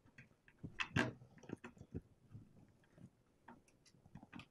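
Scattered light clicks and rustles of wiring and plastic being handled as a 3D printer's electronics board and cable bundle are eased into a plastic case, the loudest click about a second in.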